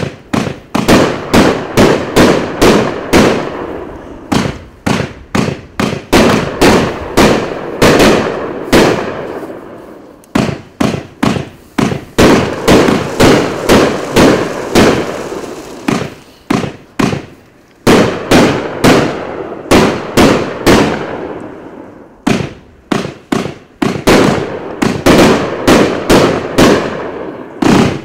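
A 500 g 1.4G consumer firework cake, Celebration in Blue, firing a long run of shots, each a sharp bang, about two to three a second. The shots come in volleys with brief lulls between them.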